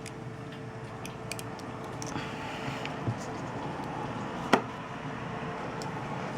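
Small clicks and taps of handling a phone during repair, over a steady background hum. One sharper click comes about four and a half seconds in.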